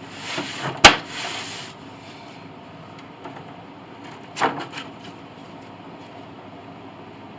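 Wooden boards being handled: a scraping slide with one sharp, loud wooden knock just under a second in, and a second, lighter clatter of knocks a few seconds later, over a steady background hiss.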